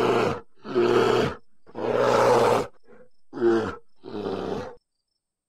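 A bear roaring: five rough roars in a row, the third one the longest.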